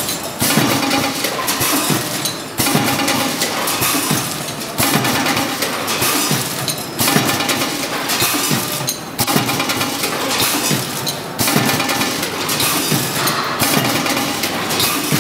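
A multihead weigher and vertical form-fill-seal sachet packing machine running, with metallic clinking and rattling as product drops through the weigh hoppers. The cycle repeats about every two seconds, once per sachet filled.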